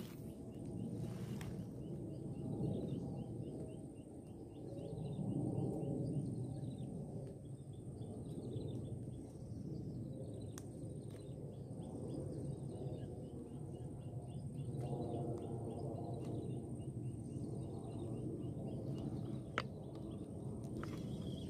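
Quiet riverbank ambience: a low rumbling noise that swells and fades, under a faint run of rapid high chirps from a bird or insect, with a couple of small clicks.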